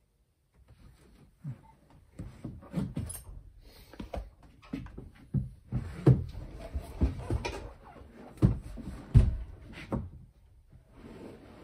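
Irregular knocks, clunks and rustling from a person shifting about and reaching into a boat's engine compartment, handling parts and tools. It starts after a second or so of quiet, and the heaviest thumps come about six, eight and a half and nine seconds in.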